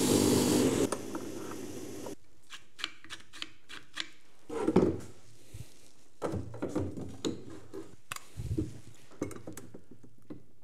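A hiss of cleaning spray on the tailgate's metal latch mechanism for about two seconds, cutting off suddenly. Then scattered clicks, knocks and rubbing as the mechanism parts and tools are handled on the tailgate.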